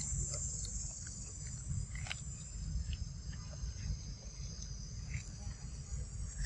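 Insects droning steadily at a high pitch, with scattered faint clicks and a low rumble underneath.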